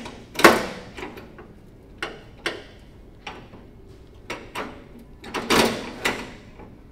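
Metal clunks and clicks of a Murray riding mower's six-speed transaxle shift lever being moved through its gear positions. Several separate knocks, the loudest about half a second in and a close cluster near the end.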